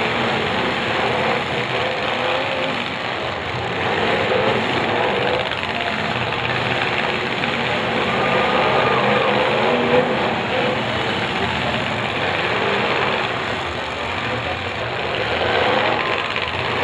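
Demolition derby cars' engines running and revving as the cars push and ram against each other, heard from the grandstand with crowd voices mixed in.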